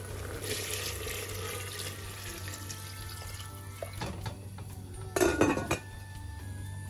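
Kitchen tap running into a sink, with dishes clinking. A louder, half-second burst of splashing and clatter comes a little after five seconds in.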